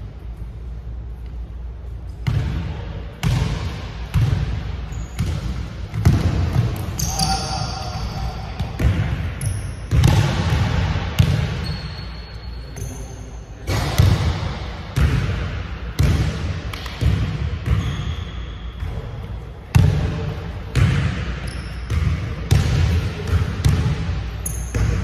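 Basketball dribbled on a hardwood gym floor, bouncing about once a second, with short high sneaker squeaks now and then.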